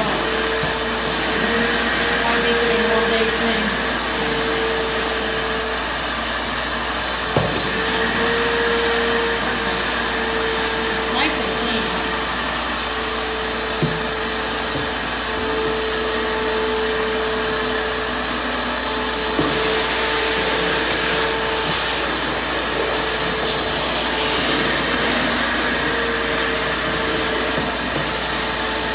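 Wet/dry shop vacuum running steadily, with an even whine over a rushing hiss, as it draws up the leftover water in a drained hot tub; a few light knocks sound along the way.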